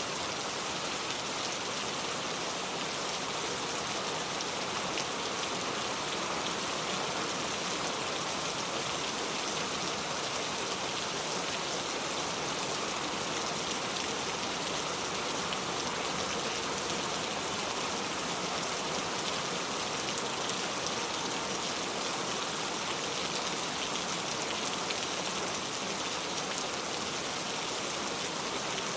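Steady rain falling, an even dense patter of drops that holds constant throughout.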